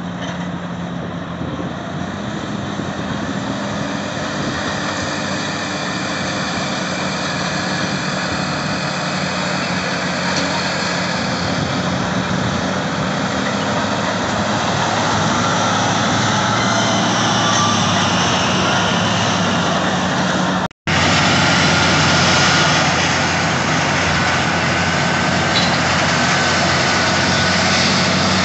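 Heavy diesel engines of Caterpillar 651E wheel scrapers running as they haul, slowly getting louder. After a brief break in the sound about 21 s in, a Caterpillar D10N dozer and a 651E scraper run hard together while the dozer push-loads the scraper, with a faint whine over the engines.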